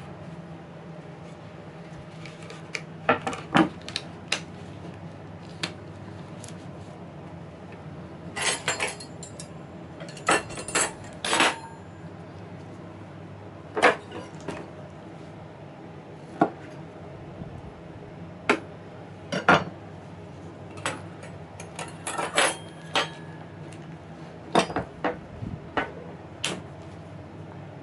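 Scattered sharp clicks and knocks, some in quick clusters, of a kitchen knife and a metal baking tray against a wooden cutting board as the skin is peeled from cooked sweet potatoes by hand, over a low steady hum.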